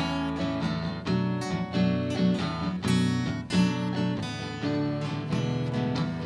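Live instrumental break: acoustic guitars strumming a steady rhythm with keyboard accompaniment.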